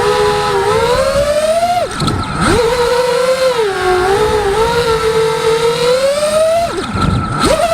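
Eachine Wizard racing quadcopter's Emax brushless motors and propellers whining, the pitch rising and falling with throttle. Twice, about two seconds in and again near the end, the pitch drops sharply and climbs straight back as the throttle is chopped and punched again.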